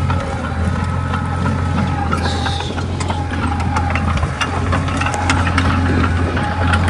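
Komatsu D20A crawler bulldozer's diesel engine running steadily, with scattered clicks and clanks throughout.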